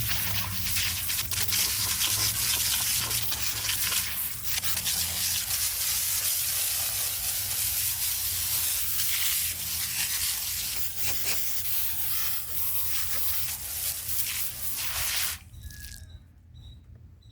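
Stiff brush scrubbing the old concrete of a bird bath, a fast rough rubbing that stops abruptly about fifteen seconds in. A steady low hum runs underneath, and faint insect chirps are left after the scrubbing stops.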